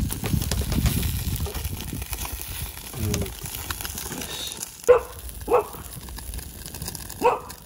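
A dog barking: three short barks in the second half.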